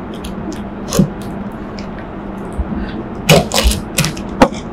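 Utility knife cutting and scraping through packing tape on a tape-wrapped cardboard parcel, heard as scattered sharp clicks and scrapes, busiest around three and a half seconds in.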